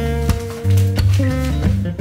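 Background music: acoustic guitar with a bass line, a held melody note through the first second and then changing notes.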